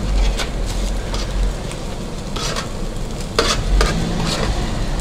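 Sliced doner meat and vegetables sizzling in the steel pan under the spit, with scrapes and clinks of a metal utensil stirring and scooping them, the clearest a few in the second half.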